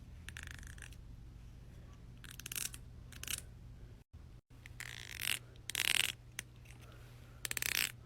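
Fingers strumming the teeth of a comb, a series of short rasping strokes of rapid fine clicks, about half a dozen of them, over a steady low hum.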